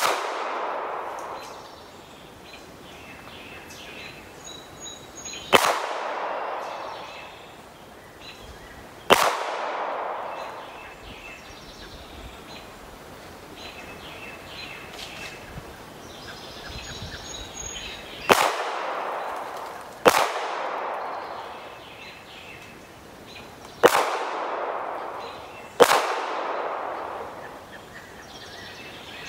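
Seven 9mm pistol shots from a Smith & Wesson M&P9 2.0, fired singly several seconds apart, each followed by a long echo. There is a pause of about nine seconds after the third shot, then two pairs of shots. Birds chirp faintly in the background.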